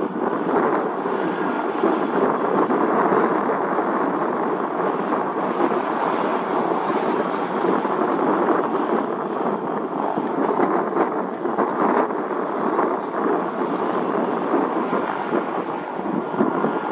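Airplane engines running steadily: an even roar with a thin, high, steady whine on top.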